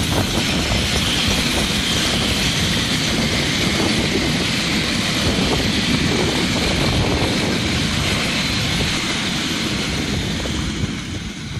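Metre-gauge steam train of the Harz narrow-gauge railway passing close by, its coaches rolling past with a steady loud noise of wheels on rails. The noise eases near the end as the last coach goes by.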